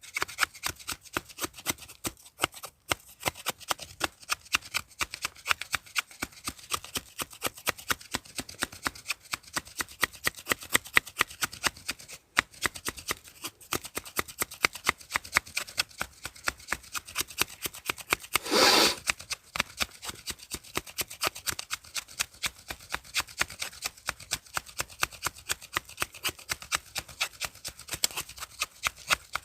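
Wood campfire crackling, with many irregular snaps and pops, and one louder burst about half a second long about two-thirds of the way through.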